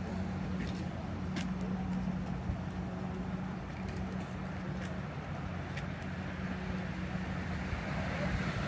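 Truck engine idling steadily, an even low hum, with a few faint clicks.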